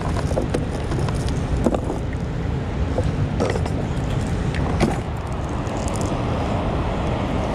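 Steady rushing of water pouring through a dam into the river below, with a few light clicks of fishing tackle being handled.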